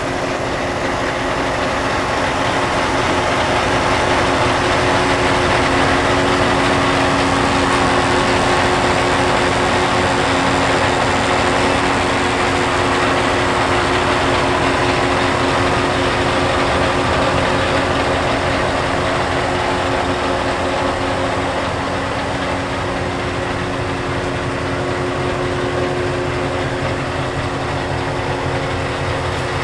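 Scania R730's 16-litre V8 diesel engine idling steadily.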